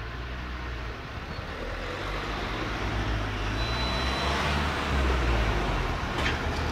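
Cars driving over a railway level crossing close by, engine and tyre noise building as a hatchback and then a pickup pass. It is loudest near the end.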